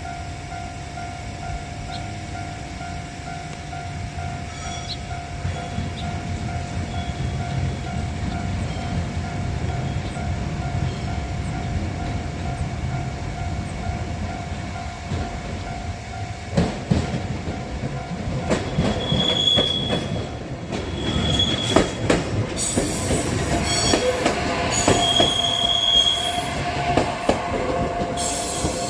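A JR commuter train passing a level crossing: a low rumble builds, wheels click over the rail joints from about halfway, and the wheels squeal briefly several times near the end. A crossing warning bell rings steadily throughout.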